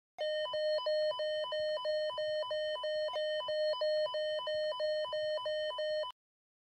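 Whistler WS1010 weather alert radio sounding its Advisory alert tone: a steady electronic tone broken about three times a second by a short higher beep. It runs for about six seconds and cuts off suddenly.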